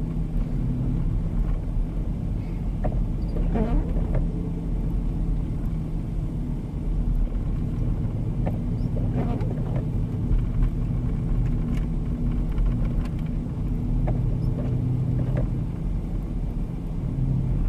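Steady low engine and road hum of a four-wheel-drive vehicle driving on an unplowed, snow-covered road, heard from inside the cabin.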